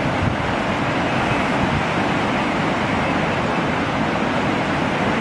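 A flood-swollen river rushing past, a steady even noise of fast-moving water.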